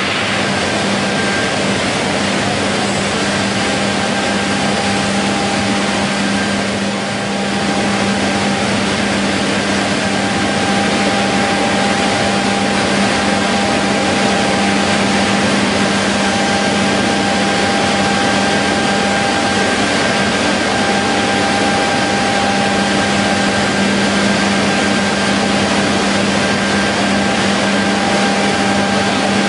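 Macmazza TS 70 horizontal beam saw running: a steady mechanical hum with a constant whine above it, dipping briefly about seven seconds in and a little louder from about ten seconds on.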